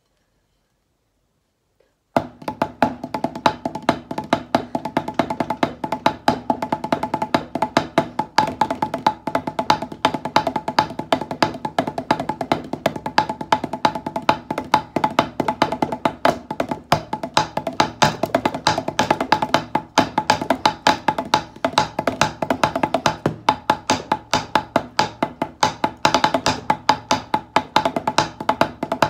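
Nylon-tipped wooden drumsticks drumming fast rhythms on a table tennis paddle, a dense stream of dry clacking strokes with a faint ring to each hit. The playing starts about two seconds in, after a short silence.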